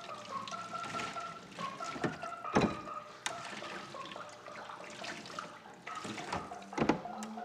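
Kitchen tap running into a stainless steel sink while dishes are rinsed under it, with two sharp clatters of dishware, about two and a half and seven seconds in.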